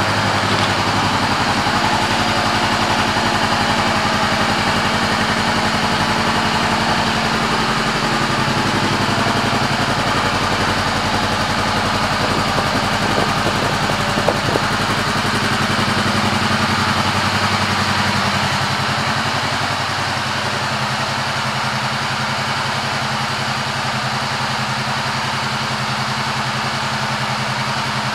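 2013 Honda CBR500R's parallel-twin engine idling steadily through its Yoshimura aftermarket exhaust. The sound gets a little quieter about two-thirds of the way in.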